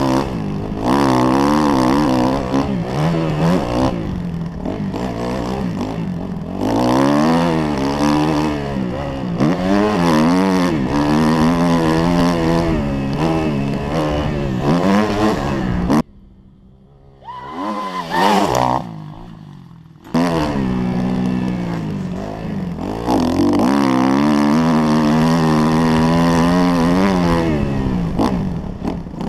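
Kawasaki KX250F four-stroke single-cylinder dirt bike engine revving up and down hard as it is ridden round a motocross track, heard from the rider's helmet. A little past the middle it goes much quieter for about four seconds, with one short burst of revs, then comes back at full throttle.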